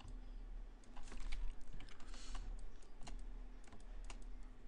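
Computer keyboard keystrokes, irregular clicks a few at a time, over a low steady hum.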